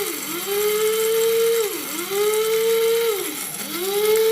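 Small press-to-run bullet mixer grinder motor pulsed in short bursts while dry grinding. Each time it spins up with a rising whine, holds a steady pitch for a second or two, then winds down, three times in a row.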